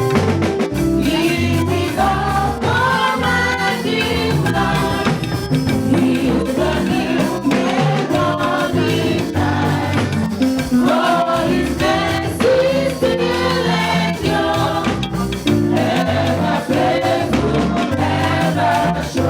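Church choir singing the opening hymn, several voices together in a sung melody over steady instrumental accompaniment.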